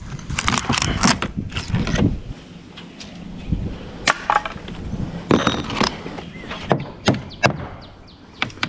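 Rotted wood fascia being pried and pulled off an eave by hand, the soft wood cracking and snapping in irregular sharp knocks.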